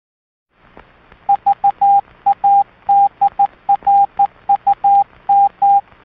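Morse code: a single steady beep keyed in short and long pulses over faint radio static, the beeping starting a little over a second in.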